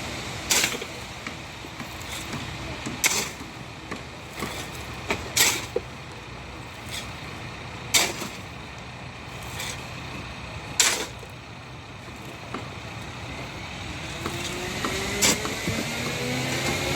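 Heavy machinery on a construction site: a large engine runs steadily and revs up, rising in pitch over the last few seconds. Sharp knocks sound every two or three seconds throughout.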